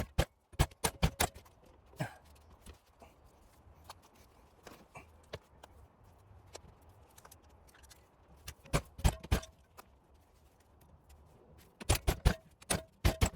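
Hand tools clicking and knocking against metal in short bursts, with quiet gaps between them, while a stuck part is being worked loose.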